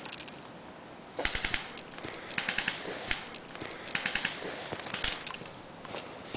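Airsoft guns firing about four short rapid bursts, each lasting under half a second, with a few single shots between them.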